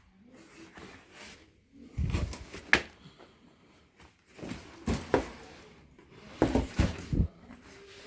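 Handling noises: several groups of knocks, clicks and rubbing with dull thuds, the sound of things being picked up and set down.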